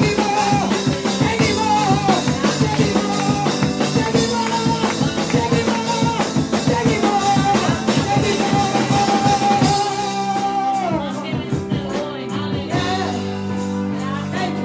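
Live church worship music: a voice singing over keyboard chords and a drum beat, with one long held note that slides down near the ten-second mark. The drums drop out about ten seconds in, leaving the keyboard chords.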